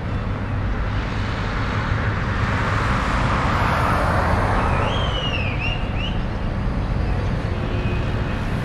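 Road traffic on a city street: a steady hum of passing cars, swelling louder as a vehicle goes by about three to four seconds in. A few short high chirps come about five seconds in.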